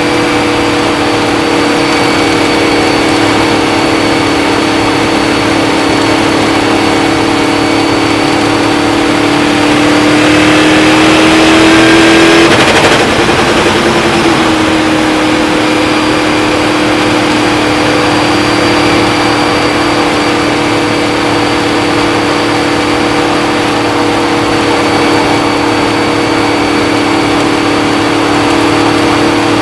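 Indy-style open-wheel race car engine running at steady high revs, heard from the cockpit at speed. About halfway through the note climbs a little, breaks up for a moment, then settles back to a slightly lower steady pitch.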